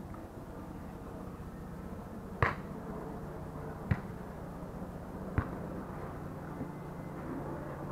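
Three sharp slaps of a beach volleyball struck by players' hands and forearms during a rally, about a second and a half apart, the first the loudest, over a steady low background hum.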